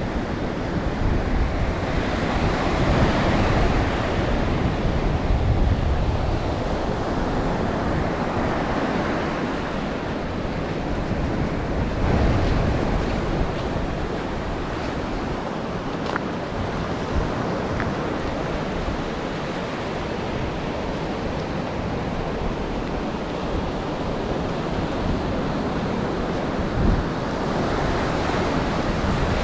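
Ocean waves breaking and washing up the beach in slow surges, with wind rumbling on the microphone. A short thump near the end.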